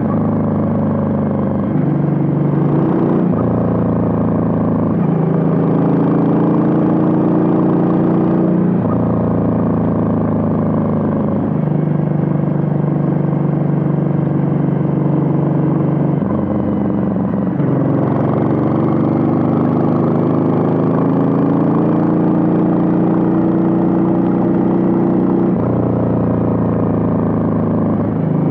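Suzuki VL800 Volusia's V-twin engine and exhaust running under way. The engine note steps up or down abruptly several times and climbs slowly between the steps.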